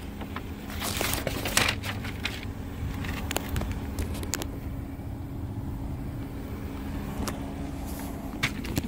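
Steady low hum inside the cabin of a parked 2019 Subaru Outback, with light rustling and sharp clicks from the phone being handled over the floor mats, mostly in the first few seconds and again near the end.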